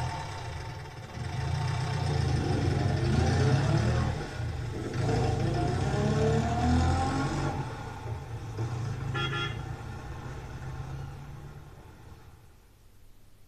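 Motor vehicle engine running with a low rumble and rising pitch as it revs, with a short horn-like toot about nine seconds in; it fades away near the end.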